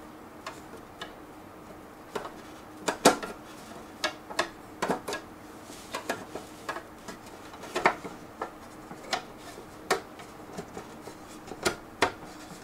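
Irregular clicks and clacks of a quad-bay hard drive enclosure's front cover being worked loose, lifted off and knocked against the case.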